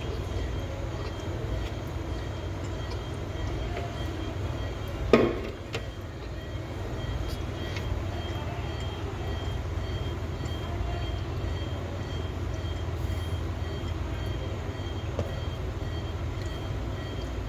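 Steady low rumble of background noise with a faint high steady tone, and one brief sharp sound about five seconds in.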